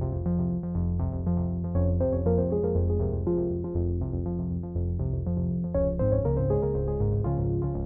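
Background music: synthesizer and keyboard playing a steady run of notes.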